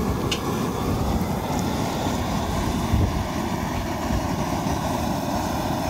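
Propane burner under a crawfish boil pot, running with a steady low, even noise.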